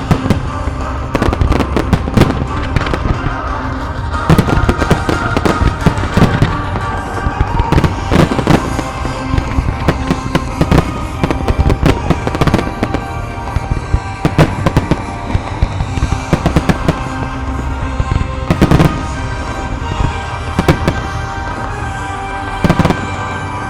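Fireworks display: aerial shells bursting and crackling in quick succession, over music played with the show. One bang stands out about 19 seconds in.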